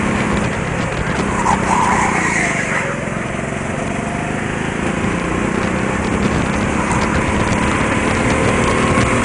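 Small-engined indoor go-kart running at racing speed under the driver. The engine note rises and falls as the kart accelerates out of corners and lifts off into them.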